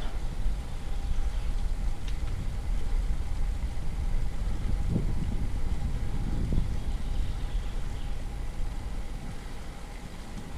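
Wind rumbling on the microphone of a bike-mounted camera while riding a road bike uphill, mixed with tyre noise on asphalt. A faint steady tone runs underneath, and there is a brief click about two seconds in.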